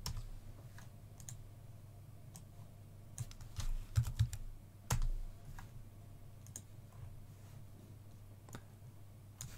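Typing on a computer keyboard, with mouse clicks: short, irregular runs of key clicks over a faint steady low hum.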